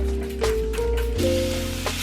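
Background music: held notes stepping from one pitch to the next over a low bass, with a steady hiss coming in about a second in.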